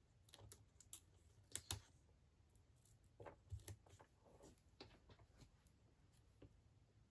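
Faint, scattered small clicks and paper rustles of hands peeling mini foam dimensionals off their backing sheet and handling a small paper die-cut.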